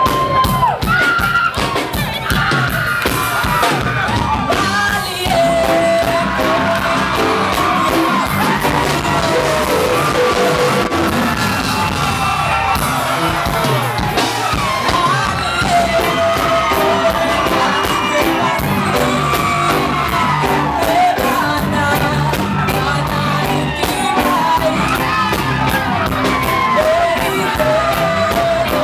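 A live band plays a Tongan pop song while a woman sings the lead: her voice rides over electric guitar, keyboard and drums. A crowd yells and cheers along, and the sound is a loud audience recording of poor quality.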